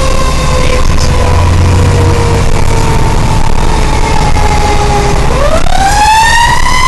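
Fire engine's siren winding slowly down in pitch, then spinning back up to a high wail about five seconds in, over the steady low rumble of the truck's engine, heard from inside the cab.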